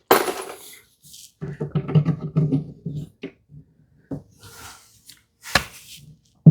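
Drill-driver on a low torque setting running in short pulsing bursts as it drives a screw, with a few clicks and knocks of handling between.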